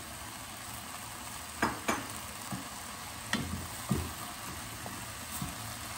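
Wooden spoon stirring chopped apple and shredded red cabbage in an enamelled cast-iron pot, knocking against the pot a few times, over a steady faint sizzle from the pan.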